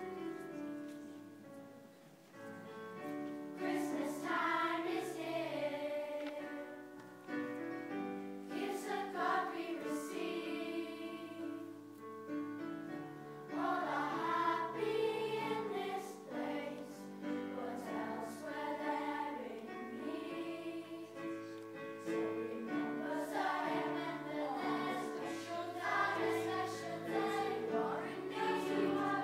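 Children's choir of 11- to 13-year-olds singing a song with instrumental accompaniment. The accompaniment plays alone for the first few seconds, and the voices come in about three seconds in.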